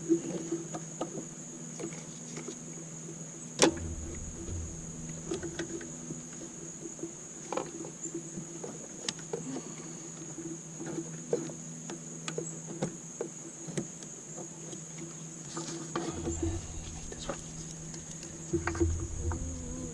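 Scattered clicks and knocks of hand tools and parts being handled under the hood while working at the firewall end of the intake plenum, the sharpest about three and a half seconds in and a cluster near the end, over a steady high-pitched whine and low hum.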